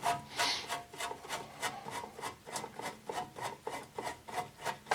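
A screw being backed out of the Craftsman snowblower's housing with a hand tool: a quick, even run of clicking, scraping strokes, about five a second.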